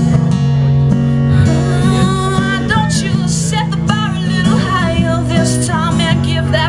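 Live acoustic guitar strummed in a steady rhythm, with a woman's wordless singing entering about three seconds in.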